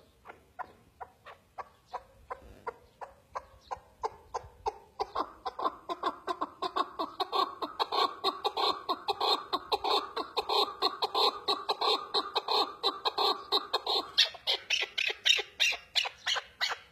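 Chukar partridge calling: a long run of quick, repeated clucking notes, about five a second. The notes start faint, grow much louder about five seconds in, and go higher in pitch near the end.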